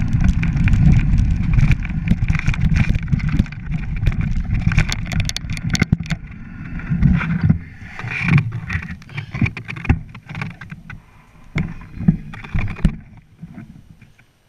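Mountain bike rolling over a rocky track: a steady rumble from the tyres and rattling and clattering of the bike. About halfway through it eases into scattered knocks and clatters, which fade out near the end.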